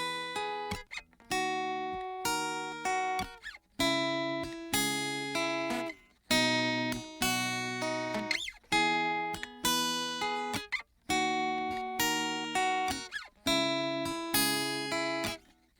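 Instrumental music: acoustic guitar chords struck about once a second, each ringing and fading before the next, with no voice yet.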